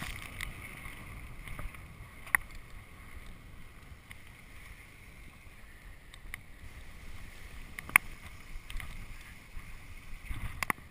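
Mountain bike rolling fast down a dirt singletrack: steady tyre and trail rumble with wind on the microphone, broken by sharp clacks and rattles from the bike over bumps, the loudest about two and eight seconds in and a quick cluster near the end.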